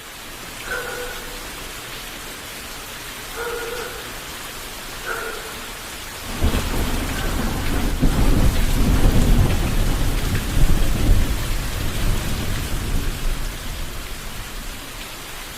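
Steady rain falling, with a long roll of thunder that breaks in about six seconds in, swells and then slowly dies away.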